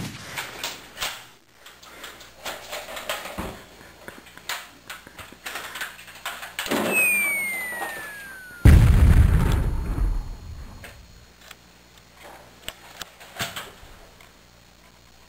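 Scattered clicks and knocks, then a whistle falling steadily in pitch for about two seconds. It ends in a loud, low boom about nine seconds in, which fades over a second and a half.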